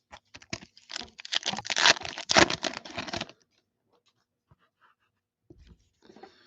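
Sports-card foil pack being torn open and its cards handled: a fast run of crinkling, tearing and clicking for about three seconds, then only a few faint ticks.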